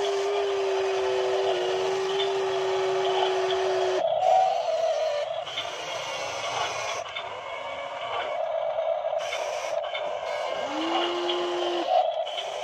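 Toy RC Kobelco SK200 excavator's electric motors whirring as it swings and works its arm and bucket in mud. A steady whine holds and cuts off about four seconds in. It comes back briefly near the end, rising quickly in pitch before settling, over a continuous motor whir.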